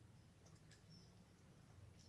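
Near silence: faint outdoor air with a steady low rumble and a few brief, high bird chirps.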